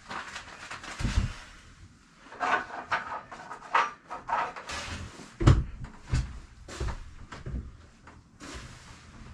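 Irregular knocks and thumps on wood, with short bursts of scraping or rubbing between them a couple of seconds in.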